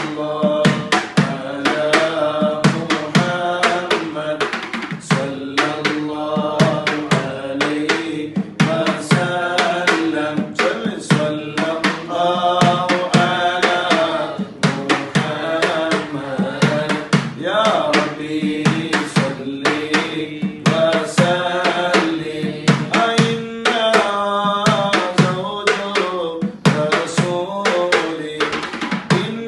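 An Arabic devotional baith sung to a steady drum beat: voices carry a flowing, ornamented melody over quick, regular drum strokes.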